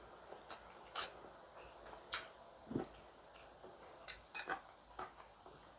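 Quiet eating sounds: a few scattered clicks and smacks from chewing scrambled eggs and from chopsticks tapping a ceramic plate.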